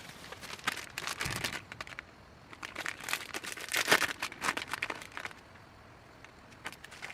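Crinkling and rustling of something being handled, in two spells: a short one about a second in, then a longer, louder one in the middle.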